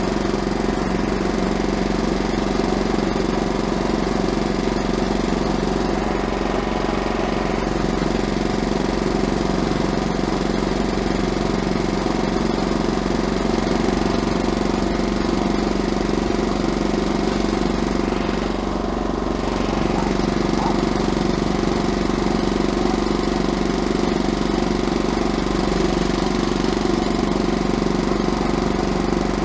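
Diesel engine of a Pasquali 945/601 mini tractor running steadily at full throttle while the tractor travels at top speed in third gear.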